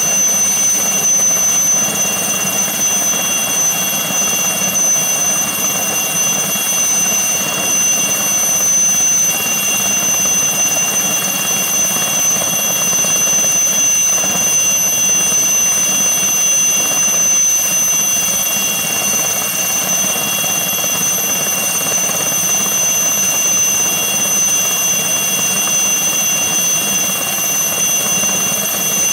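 Turbomeca Artouste IIIB turboshaft engine of an Aérospatiale SA 315B Lama helicopter running on the ground with the rotors turning: a steady high-pitched turbine whine over a constant rush.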